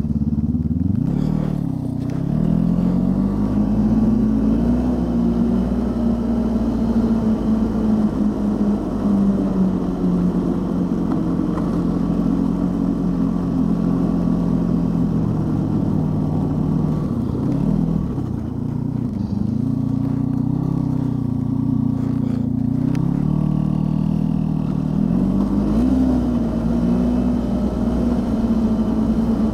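Snowmobile engine running under way at a fairly steady pitch. The engine speed drops and picks up again about a second in, around eighteen seconds in, and again near the end.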